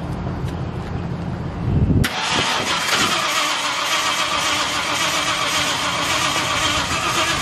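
Ford F100 pickup's engine cranking on the starter, then catching about two seconds in and running steadily.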